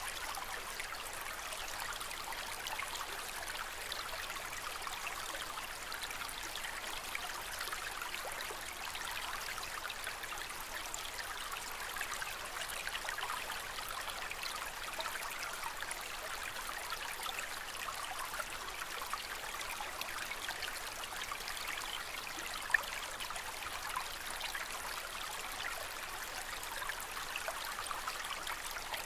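Aquarium water trickling and splashing steadily, with fine dripping and bubbling detail, with one sharp click about 23 seconds in.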